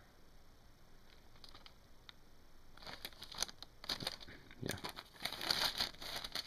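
Low room tone at first, then from about three seconds in, crinkling and rustling of a laserdisc's sleeve and video cases being handled and moved on a shelf, with a few light knocks.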